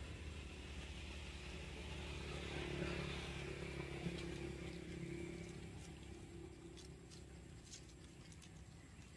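Faint motor vehicle engine passing, growing louder to about three seconds in and then fading away.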